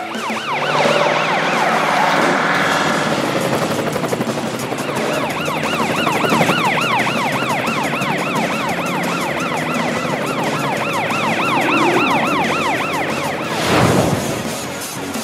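Cartoon emergency sirens on a police car and fire truck, wailing in fast repeated up-and-down sweeps as they drive, with a short break in the sirens a few seconds in. Near the end a loud whoosh passes.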